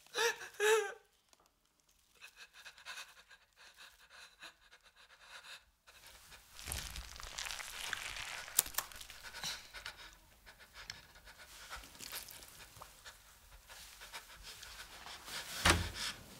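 A man panting heavily after the strain of the effort, his ragged breaths starting with a short pained moan. A brief sharp rush of noise comes near the end.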